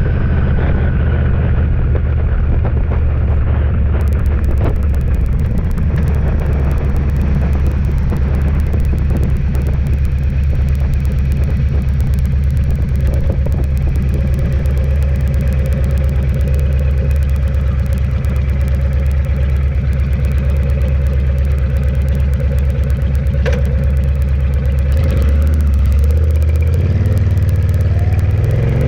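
Vehicle engine running steadily under constant wind and road noise while cruising, its note shifting and rising near the end.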